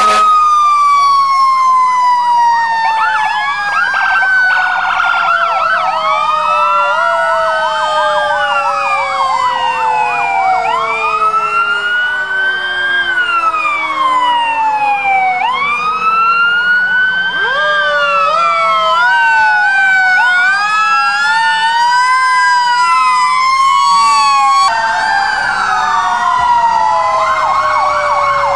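Several fire truck sirens sounding together. Wail sweeps rise and fall over and over, with bursts of fast yelp, over one long tone that falls slowly through the whole stretch.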